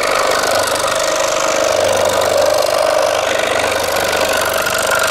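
Einhell TC-SS 405 E electric scroll saw running, its reciprocating blade sawing through a wooden board with a steady, loud buzzing rattle that cuts off suddenly at the end.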